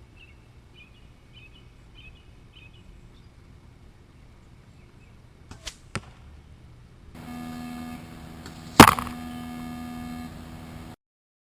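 Compound bow shooting an arrow fletched with Norway Fusion 2-inch vanes: a sharp double crack at the release about halfway through, then about three seconds later a loud smack as the arrow strikes the target. The impact is heard over a steady electrical hum. Faint bird chirps come before the shot.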